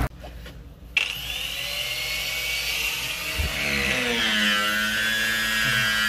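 A loud, high-pitched mechanical whine begins suddenly about a second in. It holds several tones together that waver and slide down in pitch, over a lower tone that also rises and falls.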